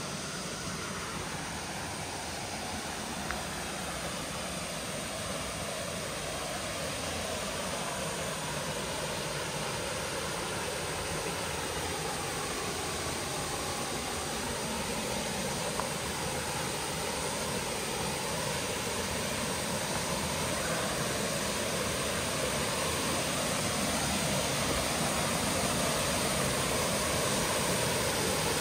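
Small river waterfall pouring into a pool: a steady rush of falling water that grows gradually louder as it is approached.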